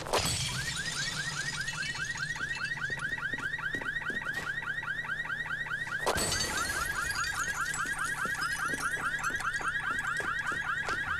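A car alarm sounding a rapid, even run of rising electronic chirps, set off just after a sharp knock. A second knock comes about six seconds in.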